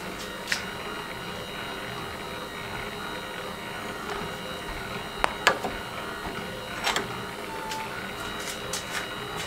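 Dividing head's index crank being turned by hand to the next tooth, with a few sharp clicks as the index pin comes out of and drops into the hole plate: one about half a second in, two close together around the middle and one a little later. A steady machine hum runs underneath.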